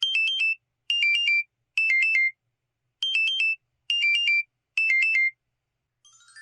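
Electronic alarm tone from an LG-T390K Wine 3G mobile phone. It plays short bursts of three quick beeps: three bursts about a second apart, a brief pause, then three more.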